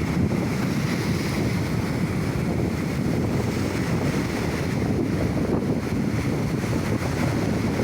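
Sea waves washing ashore under strong wind buffeting the microphone, a steady rushing noise.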